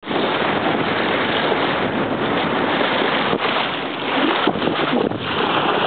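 Steady wind buffeting the microphone over the rush of sea water along the hull of a sailboat under way.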